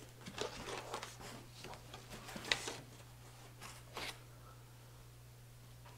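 Cardboard box being opened: the lid and flaps rustle and scrape in a string of short sounds, the sharpest about two and a half seconds in. A low steady hum underlies it and is all that is left for the last two seconds.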